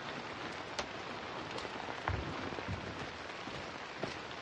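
Steady rain falling, with a few sharp drop ticks and a soft low thump about two seconds in.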